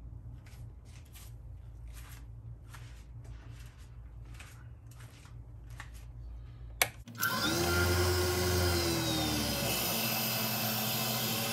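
Faint irregular ticking over a low hum, then a click about seven seconds in as the lathe is switched on. Its motor spins up, the spindle and chuck holding the ebonite blank whirring into steady running with a drill bit in the bore.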